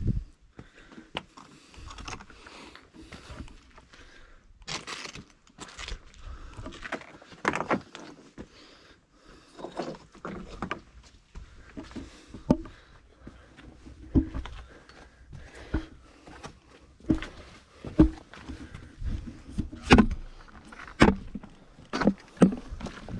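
A hiker's footsteps on a trail: uneven scuffs and knocks at first, settling into steady steps about one a second in the second half.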